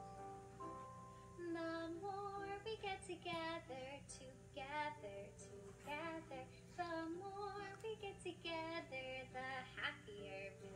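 Children's song playing through a phone's small speaker: a woman singing with a wavering vibrato over light music, the singing starting about a second and a half in after a few held chime-like notes.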